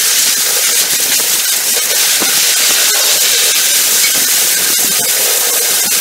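32 by 24 inch scrap-recycling hammer mill running, a loud, steady hiss with many scattered sharp clicks and rattles from material being smashed inside.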